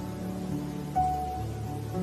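Soft background music of held notes, with a new higher note coming in about a second in.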